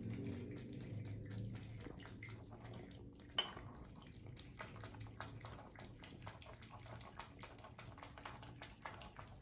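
Bath water splashing and dripping in a bathroom: many small irregular splashes and drips. A low hum fades out in the first couple of seconds, and there is one sharp knock about three and a half seconds in.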